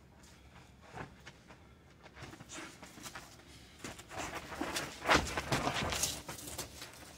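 Boxing sparring: scattered thuds of gloved punches and shoe scuffs on dirt, growing busier in the second half with the loudest impact about five seconds in.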